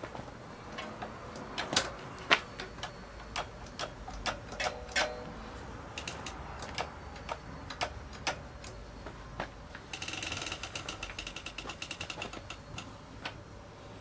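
Motorcycle rear brake pedal being pumped, with scattered mechanical clicks and knocks from the pedal and caliper as the pistons are pushed back out against freshly fitted pads. About ten seconds in comes a fast, even ticking for a couple of seconds as the rear wheel is turned, drive chain running over the sprocket.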